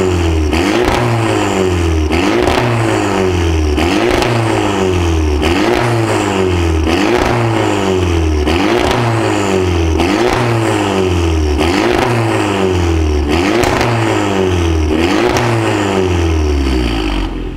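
Audi TT 1.8 TFSI turbocharged four-cylinder revved repeatedly through an ARMYTRIX valvetronic exhaust: a quick throttle blip about every second and a half, each rising sharply and falling back to idle. The revving stops just before the end.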